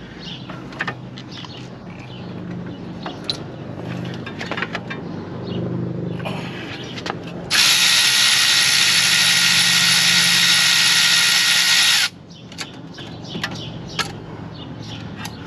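Small metallic clicks and rattles of tools being fitted, then a power tool running steadily for about four and a half seconds, starting and stopping abruptly, as it turns out a 10 mm triple-square CV axle bolt.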